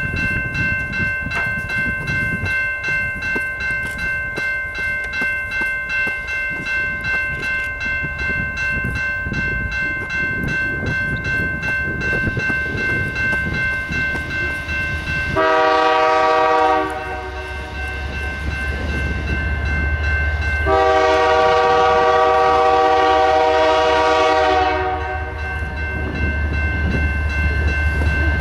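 Approaching Canadian Pacific diesel locomotive sounding its multi-note horn in two long blasts, the first about a second and a half, the second about four seconds. Underneath, a grade-crossing bell rings steadily with regular ticks, and the locomotive's low engine rumble grows after the first blast.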